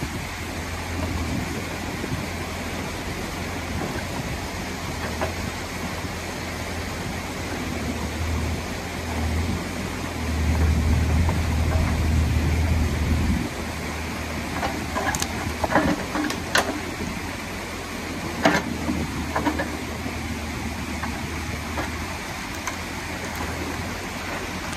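Bobcat E35 mini excavator's diesel engine running steadily, working harder for a few seconds near the middle, over the rush of water pouring through the breached beaver dam. A few sharp knocks a little past halfway.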